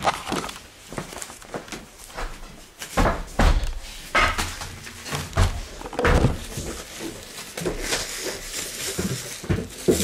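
Irregular knocks, thuds and rustling close to the microphone, the sound of things being handled and moved about.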